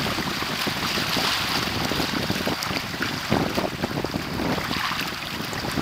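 Wind buffeting the microphone over the rush of water past the hulls of a Hobie Tandem Island sailing trimaran running downwind through choppy waves, the noise swelling and easing unevenly.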